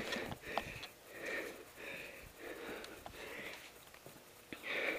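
A person breathing hard and fast close to the microphone, about seven quick breaths with a short pause near the end, after running. A few faint clicks sound between the breaths.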